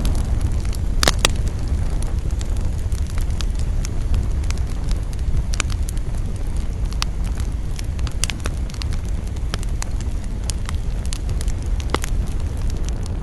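Campfire burning with a steady low rumble and irregular sharp crackles and pops of burning wood, a few louder snaps about a second in and near the end.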